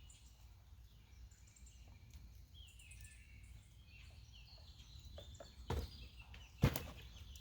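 Faint birds chirping over a steady low background rumble, with two short knocks near the end, the second the louder.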